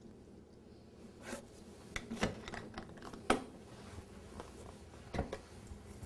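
Scattered light clicks and knocks, about half a dozen, with the sharpest a little past the middle and near the end: a dishwasher detergent bottle and the machine's detergent dispenser being handled as the detergent is added.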